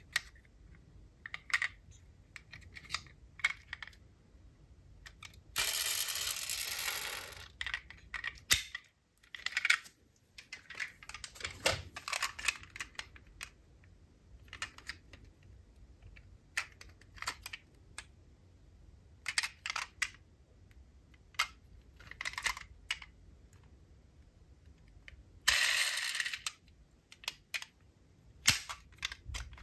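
Die-cast toy cars being handled: light clicks and taps of small metal and plastic parts, with two longer stretches of rasping noise about six seconds in and near the end.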